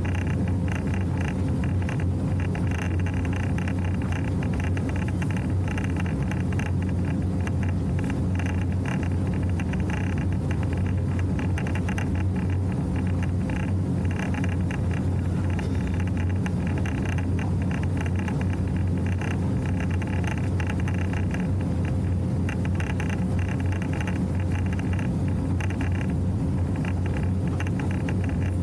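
Motorboat engine running steadily at cruising speed, a constant low hum, with water rushing and splashing along the hull.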